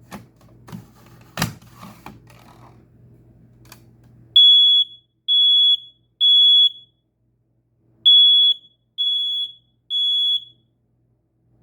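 First Alert SA710 smoke alarm sounding its test alarm: two rounds of three loud, high-pitched beeps with a pause between them, the temporal-three pattern. A few knocks and clicks come before it.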